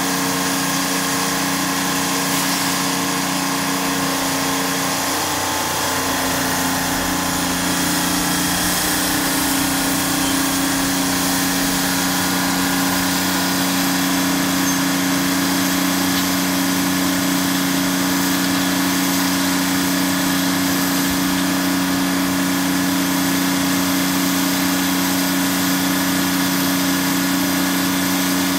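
Pyke rail crane's engine running steadily at idle, its pitch rising slightly a few seconds in.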